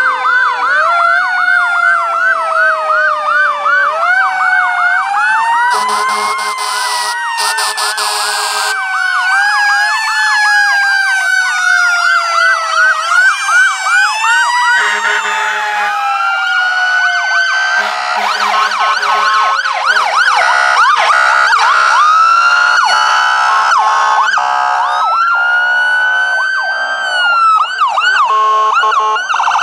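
Several ambulance and fire-engine electronic sirens sound at once: fast yelps overlap slow wails that rise and fall. Two horn blasts come about six to nine seconds in.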